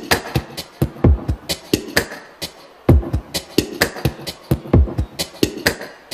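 Drum-machine beat playing over the sound system: deep kick drums that drop in pitch, with sharp snapping hits in a steady groove and no vocals.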